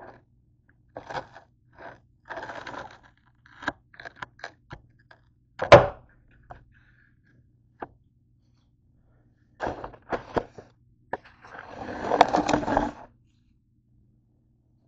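Hands handling toasted bread and kitchen things on a counter: a series of short scrapes and knocks, the loudest a sharp knock about six seconds in, then a longer scraping rustle near the end.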